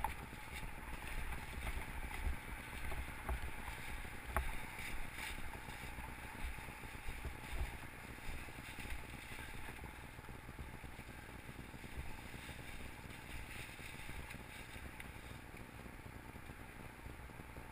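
Mountain bike moving slowly over a leaf-covered forest trail: a low rumble on the camera microphone, with a few sharp knocks in the first few seconds, settling to a quieter steady rumble.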